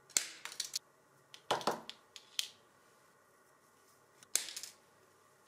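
Diagonal cutters snipping 0.5 mm spring steel wire to length: a few sharp snaps of the jaws shearing the wire, with smaller clicks and taps of tool and wire in between.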